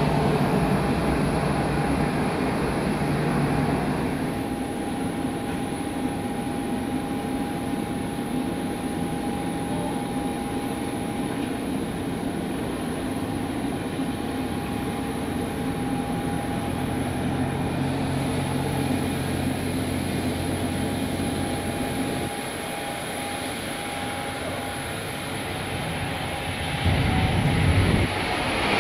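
Jet engines of a Boeing 737-800 running with a steady whine over a low rumble, heard across the airport. The sound steps down slightly about four seconds in and grows louder near the end.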